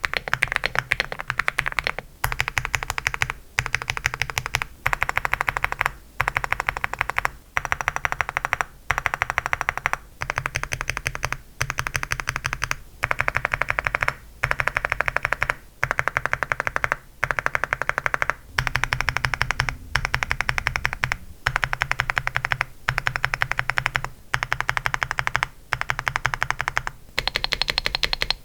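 Aula F75 mechanical keyboard with Outemu Hanny linear switches, keys pressed rapidly in repeated runs of about a second and a half separated by brief pauses. Each run switches between two keycap profiles, so the clack's tone shifts from one run to the next.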